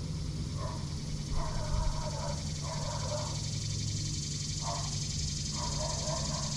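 A dog barking over and over in short bouts, going crazy.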